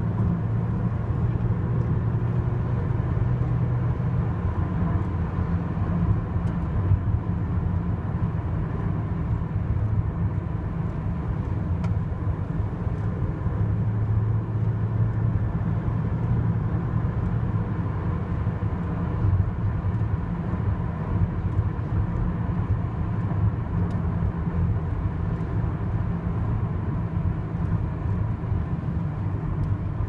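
Steady low rumble of engine and road noise inside a moving car's cabin.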